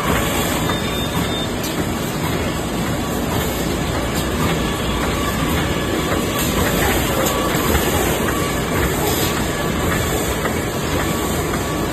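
Double-line, triple-folding, flying-knife bottom-weld plastic bag-making machine running at steady speed: an even, dense mechanical clatter and hiss.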